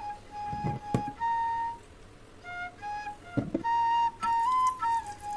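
Background flute music: a solo flute melody of held notes.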